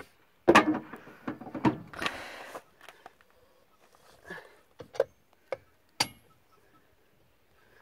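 Knocks and sharp metallic clinks of a four-way lug wrench being handled and fitted onto wheel nuts during a tyre change. A flurry of loud knocks comes in the first couple of seconds, then a few separate sharp clinks.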